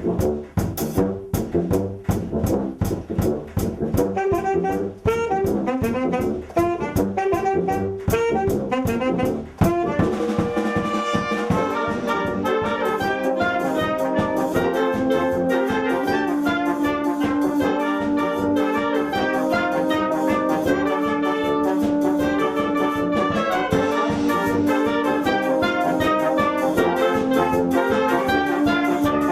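Brass band playing. For the first ten seconds or so, quick, steady percussion strokes drive a busy passage. About ten seconds in, this gives way to a smoother melody of long held notes.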